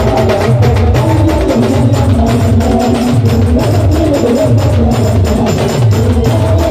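Loud street band music: a fast, steady beat of hand-held drums struck with sticks over a heavy, repeating bass line and a melody played through a stack of loudspeakers.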